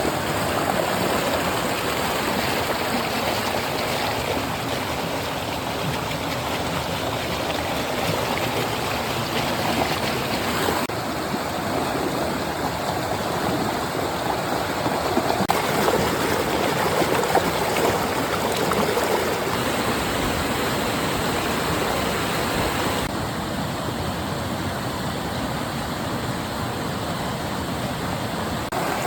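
Flowing water of a stream, a steady rushing and gurgling; its tone shifts abruptly a few times, at about 11, 15 and 23 seconds in.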